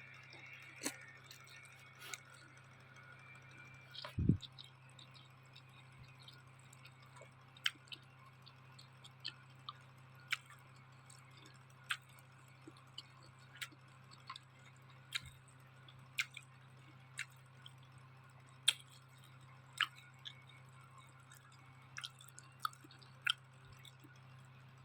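Close-up chewing of noodles: scattered sharp, wet mouth clicks and smacks, irregular, about one a second, over a steady low hum. A single low thump about four seconds in.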